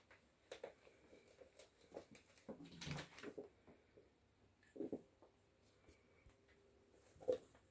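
Oriental kittens play-fighting: faint, scattered scuffles and soft knocks, with a louder bump about three seconds in and short scuffles near five and seven seconds.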